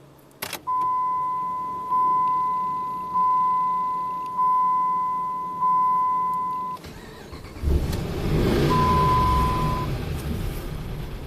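A warning chime dings about six times, roughly once a second. Then the 2005 Dodge Ram 2500's 5.7 Hemi V8 cranks and starts, and keeps running, with one short beep just after it catches. The engine is misfiring on cylinder 6, which the mechanic reads as its intake valve not opening.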